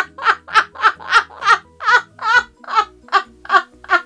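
A woman laughing hard: a long unbroken run of about a dozen 'ha' pulses at roughly three a second, getting quieter near the end.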